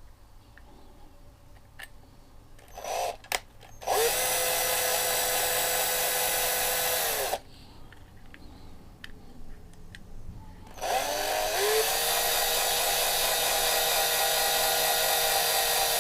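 Small electric drill drilling a screw hole into a diecast model truck's base. A few brief trigger blips come first, then it spins up and runs steadily for about three seconds and stops. After a pause with a few light clicks it spins up again and runs steadily on.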